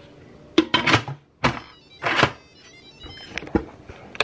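Lid of an Instant Pot being handled and set onto the cooker's stainless inner pot: several clunks and knocks, with a short scraping sound about two seconds in.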